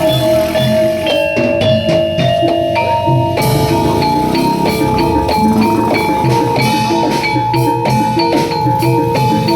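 Jaranan gamelan accompaniment: struck metal mallet instruments and drums playing a steady, even rhythm. A long held note sounds over it and steps up in pitch about three seconds in.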